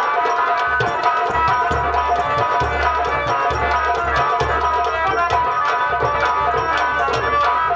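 Live nautanki band music: rapid, dense drumming on nagada and hand drum under a sustained, steady melody line.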